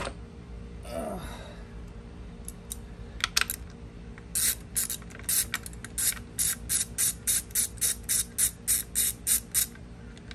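Hand socket ratchet clicking in an even run of short strokes, about three to four a second, as a half-inch bolt holding the outboard's electric starter is worked loose. A few scattered clicks come just before the run starts.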